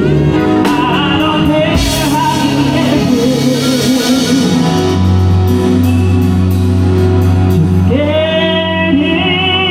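Live band music with a singer, played at a sound check. A sung line moves over a steady low bass, and near the end a note swoops up and is held.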